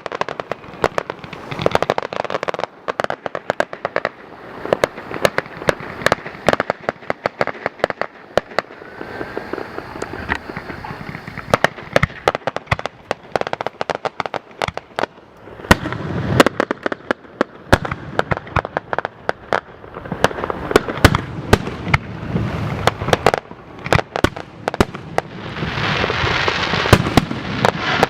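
Fireworks display: a rapid, continuous string of bangs and cracks from bursting shells. Near the end it thickens into a dense crackling hiss.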